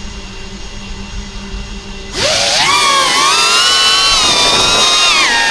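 FPV whoop drone's electric motors spinning up about two seconds in, after a low hum, into a loud multi-pitched whine like a power drill that rises and dips with the throttle.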